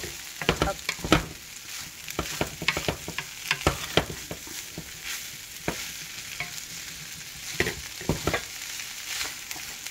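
Shrimp and vegetable fried rice sizzling in a frying pan as a wooden spatula stirs and turns it. A steady hiss of frying runs under frequent, irregular scrapes and taps of the spatula against the pan.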